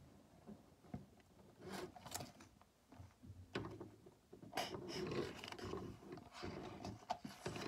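Paper handling noise as a drawn sheet is moved and lowered close to the microphone: rustling and scraping with scattered clicks in irregular bursts, busiest from about three and a half to six seconds in.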